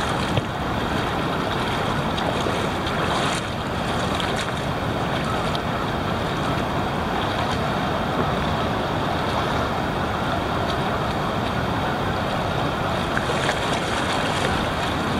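Steady rushing of shallow river water flowing over rocks below the falls, with wind buffeting the microphone and a few light splashes of wading steps.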